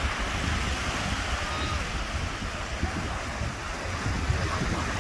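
Ocean surf breaking and washing over shallow water, a steady rushing noise, with wind buffeting the microphone as a fluctuating low rumble.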